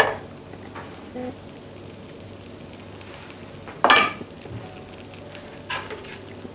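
Butter sizzling quietly as it melts in a hot non-stick frying pan, with a metal knife clinking sharply against the pan twice, once at the start and more loudly about four seconds in.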